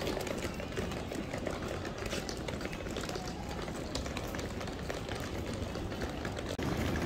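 Small wheels of a child's hard-shell rolling suitcase rumbling steadily over a tiled floor, with many small clicks.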